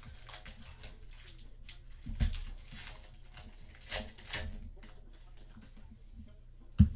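Trading cards and pack wrappers handled on a table: soft rustling and light taps, with a sharper knock near the end.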